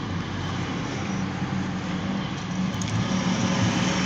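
Diesel locomotive engine running as light power gets under way, a steady low drone that grows louder near the end, heard from inside a car.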